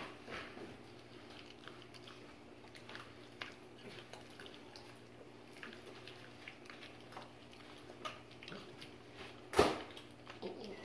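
Puppy chewing and gnawing a lamb rib bone: irregular small crunches and clicks, with one louder sharp knock near the end.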